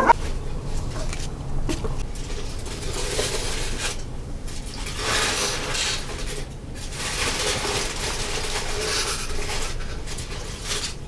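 Aluminium foil crinkling and rustling in a few bouts as it is peeled back off a covered pan of food.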